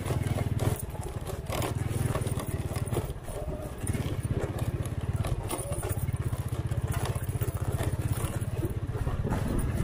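Honda Win 100's small two-stroke single-cylinder engine running under load as the motorcycle is ridden off-road, its note dropping briefly about a second in and again around three seconds in.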